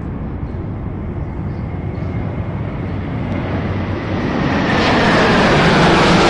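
Jet aircraft engine noise: a steady rumble with a high whine that slowly falls in pitch, growing louder and fuller about four and a half seconds in.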